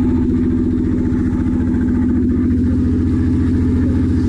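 Fishing boat's engine running steadily at close range, an even pulsing throb with a strong hum.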